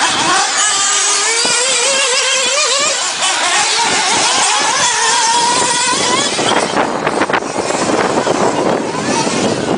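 Remote-control off-road car driving, its motor whine wavering and slowly rising in pitch over the first several seconds over a steady rushing noise. After that the whine fades into rougher, patchier noise with a few knocks.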